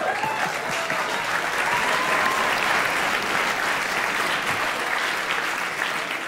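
A large seated audience applauding, a dense steady clapping that eases slightly near the end.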